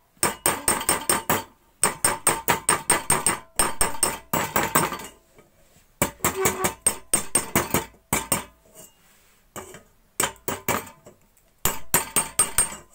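Hammer tapping on a metal rod set in the mouth of a kerosene stove's pump tube, knocking the bent rim straight so the pump cap can seat. Quick runs of ringing metallic taps, each run a second or so long, with short pauses between.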